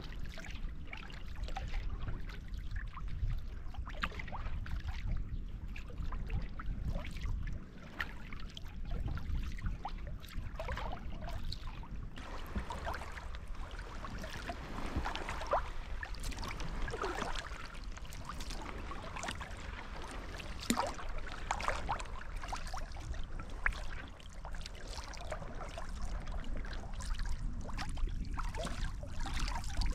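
Sea kayak being paddled through calm sea water: a wooden paddle blade dipping and pulling through the water, with splashes, drips off the blade and water trickling along the hull.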